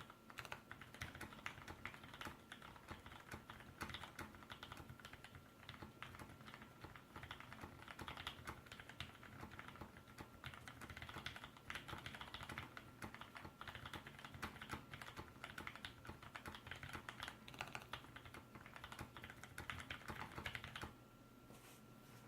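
Steady, fast typing on a custom mechanical keyboard with linear Gateron Clear switches and GMK ABS keycaps: a dense, uneven patter of keystrokes that stops about a second before the end.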